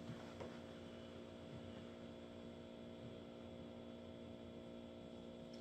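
Quiet room tone with a steady electrical hum made of several constant tones, and a faint click near the end.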